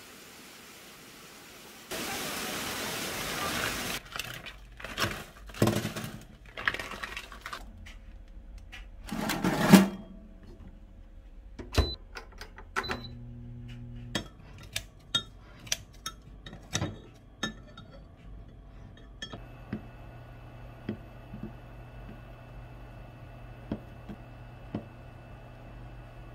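Kitchen handling sounds: irregular clatters and knocks of utensils and containers, then a steady electric hum from a running countertop oven with sharp knife taps on a plastic cutting board as ham is diced.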